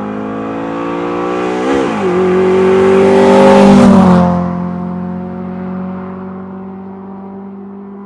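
A car driving past at speed: its engine note grows louder, wavers briefly in pitch about two seconds in, then drops in pitch as the car passes about four seconds in and fades away.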